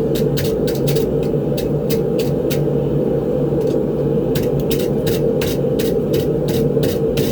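Propane forge burner running steadily, turned down to about 5 psi: a continuous rushing burn with frequent irregular sharp crackles.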